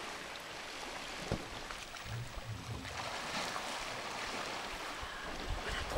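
Steady rushing noise of wind and water, with the wash and splashing of elephants swimming in a pond, and a single knock about a second and a half in.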